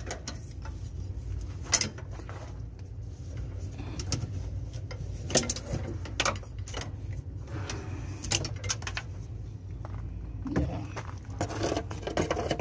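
Irregular light clicks and rattles of a steel accelerator cable sliding and knocking against brackets and engine-bay metal as it is pulled out by hand, over a steady low rumble.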